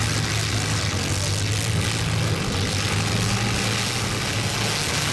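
Engines of several compact demolition-derby cars running together: a steady, fairly loud engine drone with no clear crashes.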